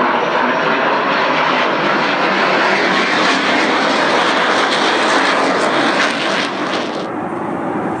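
Military jet aircraft flying overhead: a loud, steady engine roar. It drops away abruptly about seven seconds in, leaving a quieter rush.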